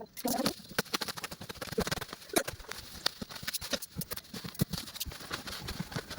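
Irregular clicks, taps and knocks of packaging and plastic parts being handled, several a second, with a few louder knocks.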